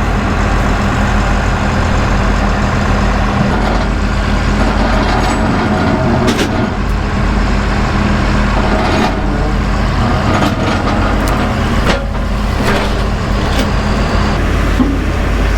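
Diesel engine of heavy farm machinery running steadily under load. Several sharp knocks or clanks of metal are scattered through it.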